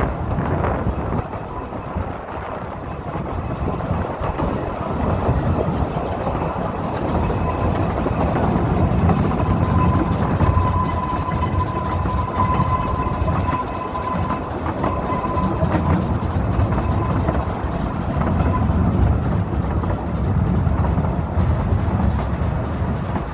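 Narrow-gauge steam train's carriage running along the rails, heard from inside the open carriage: a steady low rumble and rattle of wheels and bodywork. A faint thin squeal holds for a few seconds midway as the train rounds a curve.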